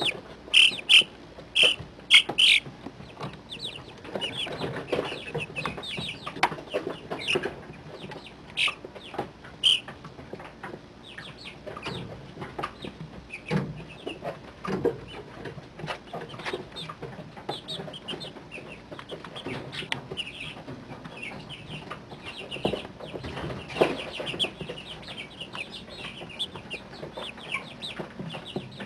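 A brood of month-old chicks peeping and chirping in a brooder: many short, high calls overlapping, loudest in the first couple of seconds and again near the third of the way through, with scattered short taps among them.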